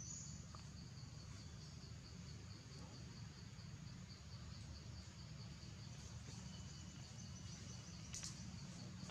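Insects trilling: a faint, steady, evenly pulsed high chirping, over a low steady rumble. A short, brighter high sound cuts in about eight seconds in.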